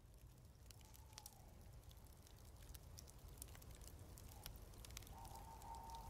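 Near silence: a faint low hum and hiss with scattered soft clicks, and a faint high tone in the last second.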